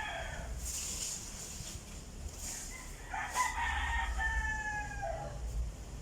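Rooster crowing: the tail of one crow at the start, then a full crow about three seconds in, drawn out and falling in pitch at its end.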